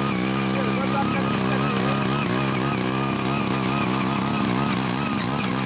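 CHING YEE CY80 mini garden tiller's small engine running steadily under load as its rotary tines dig and loosen hard, uncultivated soil. The engine note wavers slightly as the tines bite.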